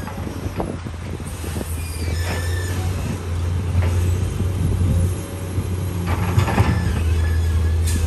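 Heavy dump truck's diesel engine running steadily under load while its hydraulic hoist tips the bed, getting louder about two seconds in and again near six seconds. Dirt and rocks slide out of the bed with a scattered rattling rush.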